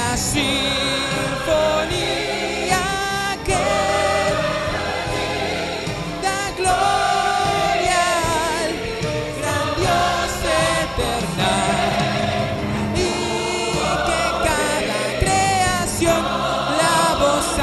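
Worship song sung by several voices over an instrumental accompaniment, the singers holding long, wavering notes.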